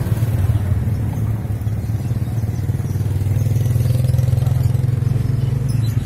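Motorcycle engine running close by, a steady low drone that gets a little louder in the middle and eases toward the end.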